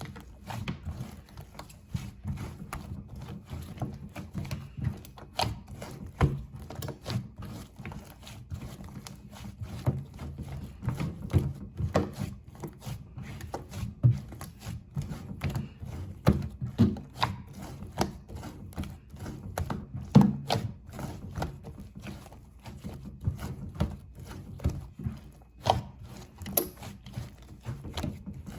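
Hands playing with a soft slime: a steady run of irregular sticky clicks and small pops as it is pressed, stretched and folded.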